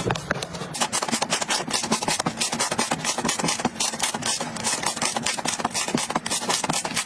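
Slime being worked, making a fast, dense run of crackling clicks.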